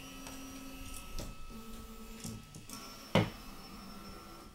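Ultimaker S3 3D printer's motors whining in steady tones that change pitch every second or so as the machine moves after its filament load is confirmed, with one sharp click about three seconds in.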